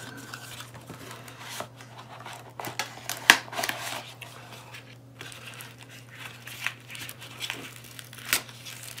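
Cardboard battery box being opened and its inner tray slid out, then a camera battery handled in its plastic wrap: rustling and crinkling with scattered sharp clicks and scrapes, the sharpest about three seconds in.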